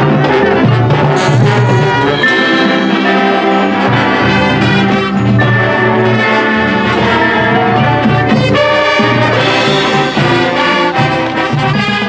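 High school marching band playing its field show, brass carrying the music in chords that change without a break.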